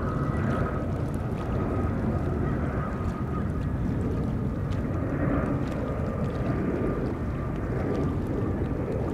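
Airbus A320 jet engines on final approach: a steady low rumble with a thin high whine running over it.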